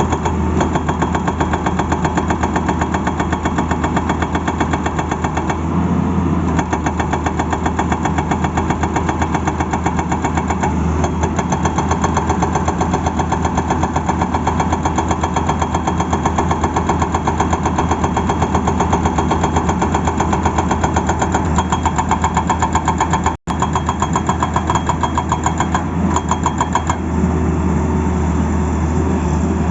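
Tata Hitachi excavator's diesel engine running steadily with a fast, even pulsing, cut by a momentary gap about two-thirds of the way in.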